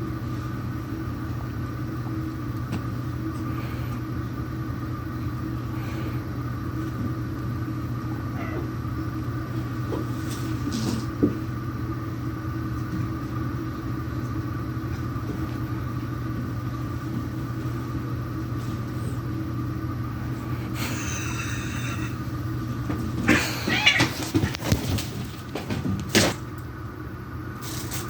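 Domestic cats fighting: a high yowl about three-quarters of the way through, followed by a few seconds of loud, noisy scuffling. A steady low machine hum runs underneath throughout.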